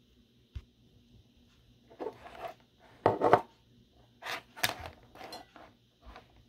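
Handling noises as a plastic sound machine and its power cord are moved about on a table: a click, then several short rubbing and knocking sounds, the loudest about three seconds in.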